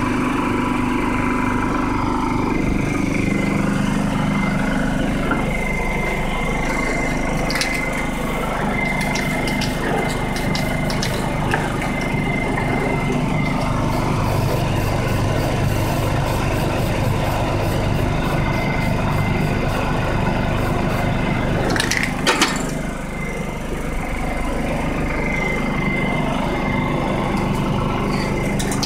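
Small portable generator engine running steadily with a constant hum. Brief hisses from a spray-paint can come over it, and one sharp knock comes about three-quarters of the way through.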